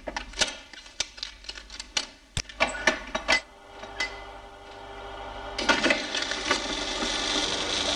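Motion-picture film machine being handled and started: a string of sharp mechanical clicks and clacks as film is threaded through its gate and sprockets. About five and a half seconds in, its motor starts and runs with a steady mechanical whirr.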